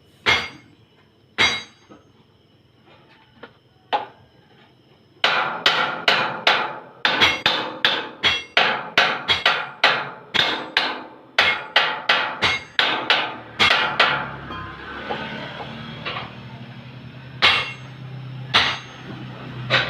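Hammer striking metal with ringing blows, likely tapping a belt pulley into line with the pulley below it. A few spaced strikes come first, then a quick run of about two blows a second for several seconds, then two more near the end.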